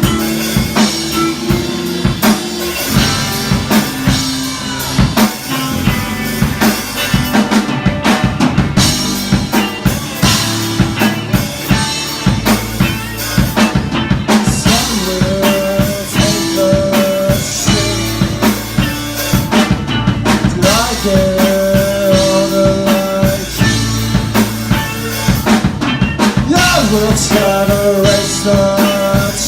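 Live rock band playing an instrumental passage: a drum kit keeps a steady beat with bass drum and snare under bass, and from about halfway through a lead instrument holds long sustained notes.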